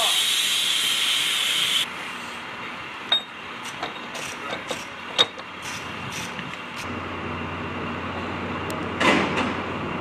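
A steady loud hiss that cuts off abruptly about two seconds in. Then come scattered sharp metallic clinks and taps of hand tools working on an F-35A's landing-gear wheel nuts and axle.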